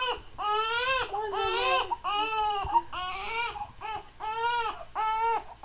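Baby crying: a string of high-pitched, rising-and-falling wails, each about half a second long, coming shorter and quicker toward the end.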